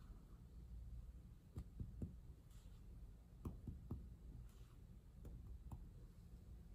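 Indirect percussion of the chest: fingertips tapping on the middle finger of the other hand laid flat over the ribs, about seven soft, dull taps in groups of two and three. The taps sound out the upper border of the liver.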